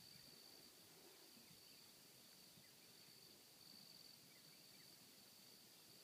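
Near silence, with only a faint, steady, high-pitched insect trill, typical of crickets.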